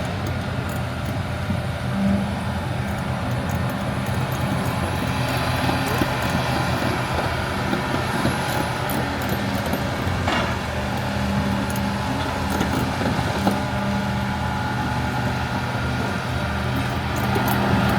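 LiuGong 942F excavator's diesel engine running steadily under work, with a hum that swells and eases slightly.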